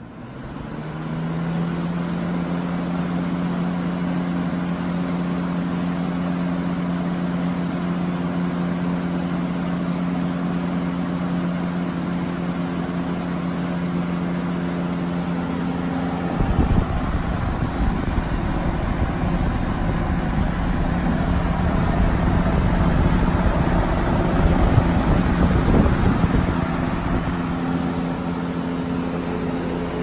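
Lasko-built Airworks 20" box fan with a PSC motor spinning up from switch-on and then running with a steady motor hum and whoosh of air. From about halfway, the fan's air stream hits the microphone, adding a gusty low rumble.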